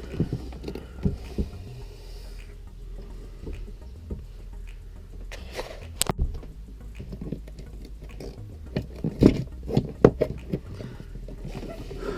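Irregular knocks, clicks and scraping from hand work fitting an electrical box into a wall opening, with a sharp click about six seconds in and a cluster of louder knocks about nine to ten seconds in.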